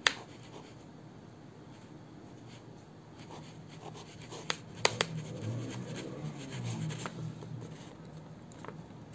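Ballpoint pen writing on paper: faint scratching strokes, with a few sharp ticks as the pen tip touches down.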